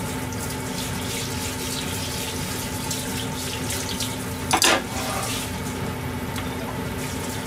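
Kitchen tap running steadily into a sink, with a faint low hum underneath. About four and a half seconds in, a short, sharp clatter of something hard knocking in the sink is the loudest moment.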